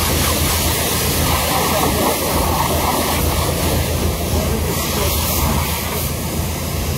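Pressure-washer lances spraying high-pressure water onto a car's bodywork and wheels: a steady, unbroken rush of spray.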